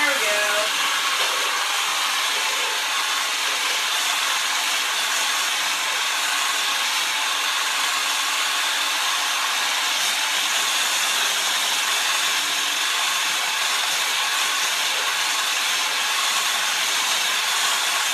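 Electric hand mixer running steadily at one speed, its beaters whipping egg whites in a metal bowl toward soft peaks.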